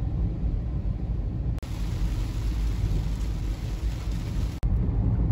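Road noise inside a car driving in the rain: a steady low rumble from the tyres on the wet road with a hiss of spray and rain. The sound changes abruptly twice, about a second and a half in and a little after four and a half seconds.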